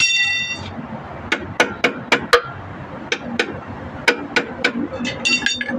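Hammer tapping on metal: a run of five sharp strikes, a short pause, then about five more, with a brief high ringing tone at the start and another near the end.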